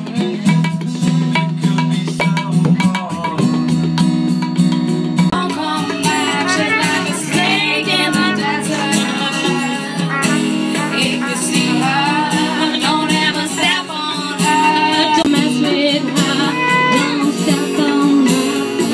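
Live acoustic music: tabla strokes at first, then a woman singing with a wavering voice over acoustic guitar and harmonium.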